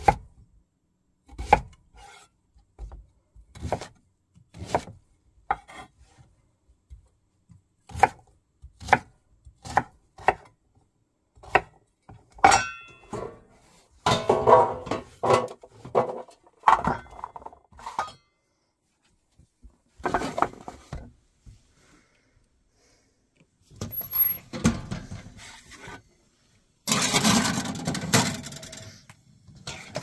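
A knife chopping a sweet potato on a wooden cutting board, one sharp knock every half second to a second. After that come denser clatters of dishes and pans, and a longer rattling clatter near the end.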